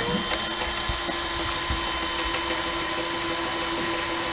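A power tool's motor running steadily at constant speed, a loud even whine with a hiss over it.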